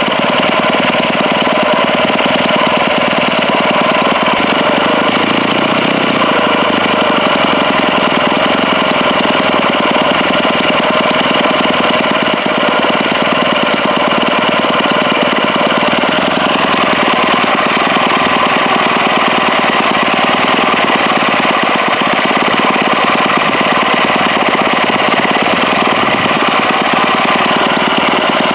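O.S. FS-91 Surpass four-stroke glow engine running steadily, its bearings bad. The engine's note shifts slightly about halfway through as its speed changes.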